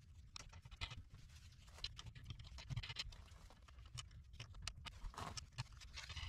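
Faint scratching and small clicks of a gloved hand threading a wing nut onto a bolt through a wooden board.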